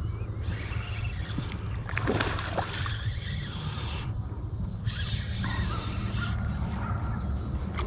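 Water sloshing and splashing beside a kayak as a hooked fish is played in, with a cluster of splashes about two seconds in. Wind rumbles on the microphone throughout, and a bird calls faintly.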